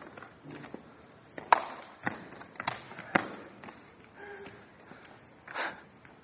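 Rapier-and-wooden-dussack sparring on a hardwood gym floor: scattered sharp knocks from weapon contact and footfalls, four in quick succession from about one and a half seconds in, the first the loudest, and another short burst near the end.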